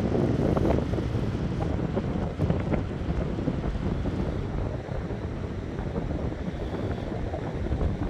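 Wind buffeting the microphone: a dense, unsteady low rush that rises and falls throughout.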